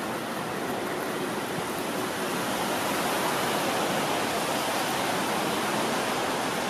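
Steady hiss of rain falling and splashing on wet tracks and platform, growing slightly louder about two seconds in.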